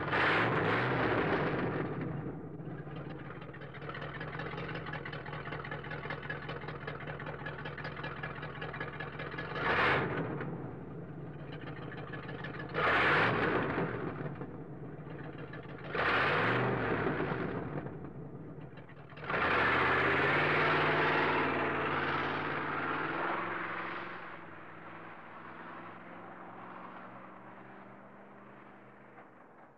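A car engine revved several times in short swells, about ten seconds in and again every few seconds, with a longer rev held near the two-thirds mark, then settling to a steadier run that fades toward the end.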